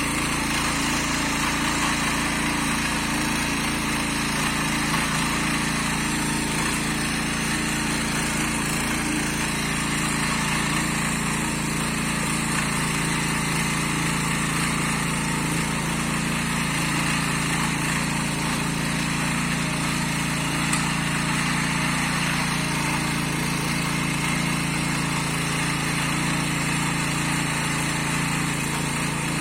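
Kaan 26S garden tiller's small engine running steadily while tilling medium-hard soil, an even mechanical drone with no change in speed.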